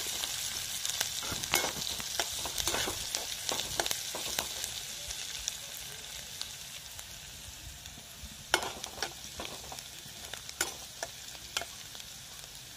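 Chopped garlic, ginger and green chillies with fennel seeds sizzling in hot groundnut oil in a kadai, while a perforated metal spatula scrapes and clicks against the pan. The sizzle slowly dies down, and a few sharper clicks come in the second half.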